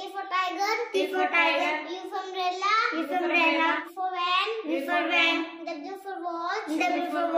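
A young girl chanting her way through an English alphabet chart, letter and picture word in turn, in drawn-out sing-song phrases about one a second.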